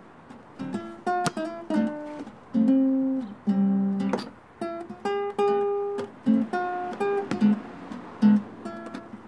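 Acoustic guitar music with plucked, picked notes in a gentle melodic line.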